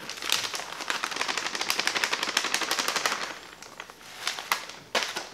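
Plastic bag of shredded cheese crinkling rapidly as the cheese is shaken out of it, for about three seconds, then a few short rustles near the end.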